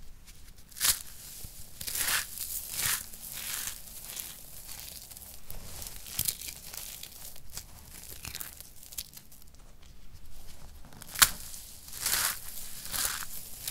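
Dry soap crumbs and shavings crunching and rustling in a string of gritty bursts as hands scoop, squeeze and drop them. There is a single sharp crack near the end.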